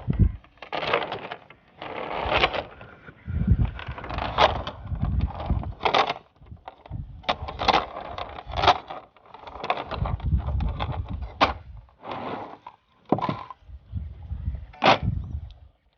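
Irregular wooden knocks and clatters from a wooden boat on the water, about a dozen, uneven in loudness, with low rumbling between them.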